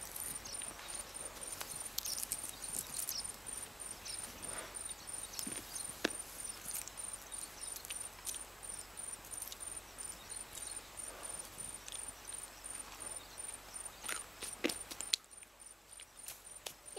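An insect chirping in a steady, evenly pulsed high pitch, with faint scattered crackles and rustles of hands picking roasted wheat and chickpeas out of ash and dry stubble.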